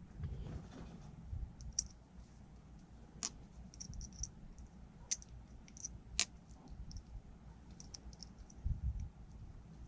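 Scattered light clicks and ticks of small wiring parts and tools being handled, with three sharper clicks about two, three and six seconds in.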